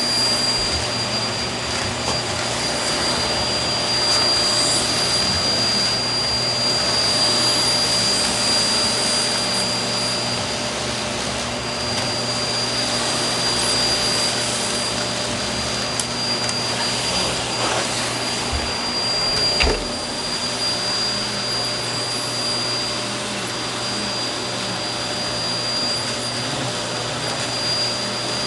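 Vacuum cleaner running steadily with a high whine, a little louder for a few seconds early in the stretch. A single sharp knock about twenty seconds in.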